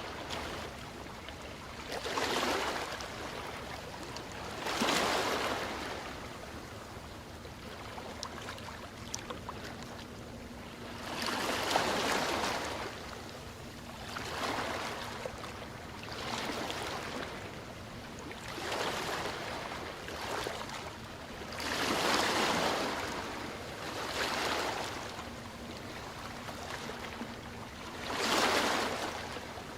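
Ocean waves breaking and washing in, about eight swells that each rise and fade over a second or two, over a steady hiss of surf.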